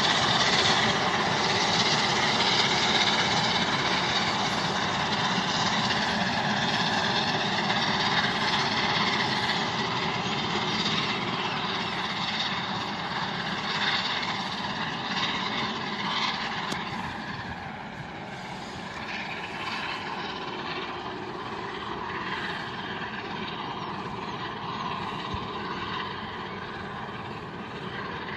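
Steam locomotive 60163 Tornado, a three-cylinder Peppercorn A1 Pacific, working a train past: a steady rushing exhaust and running noise that fades gradually as the train draws away, dropping off most a little past the middle.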